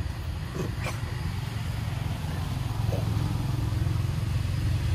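Steady low rumble of an engine running, with a few short clicks over it near the start and again about three seconds in.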